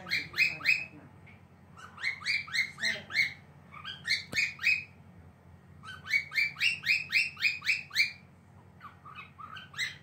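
Cockatiel chirping in quick runs of short rising notes, about five a second, with brief pauses between the runs.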